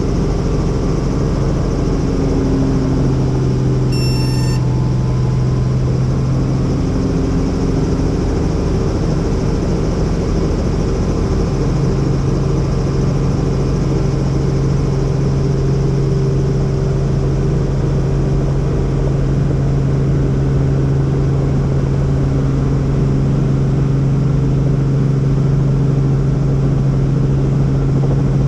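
Helicopter in flight: a steady engine-and-rotor drone with a strong low hum. A brief high-pitched tone sounds about four seconds in.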